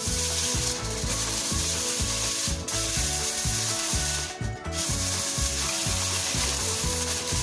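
Aluminium foil crinkling and rustling as it is spread and pressed down by hand over a baking dish. The rustle keeps going and dips briefly about two and a half seconds in and again near the middle.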